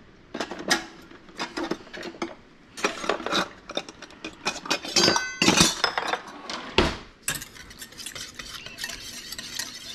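A whisk beating the vinegar, mustard and anchovy base of a vinaigrette in a bowl: rapid, irregular clicking and scraping against the bowl. There is a short ringing clink about five seconds in and a sharper knock near seven seconds, and the beating is quieter after that.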